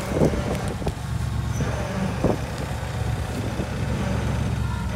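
Dodge Ram 2500's gasoline Magnum engine idling steadily, a low hum, as the truck creeps backward up onto a trailer, with a couple of faint knocks.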